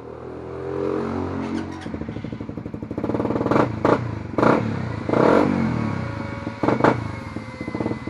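Suzuki Raider 150 Fi's single-cylinder four-stroke engine revving through an aftermarket Apipo exhaust pipe. Its note rises over the first couple of seconds, then it runs on with several short, loud bursts of throttle.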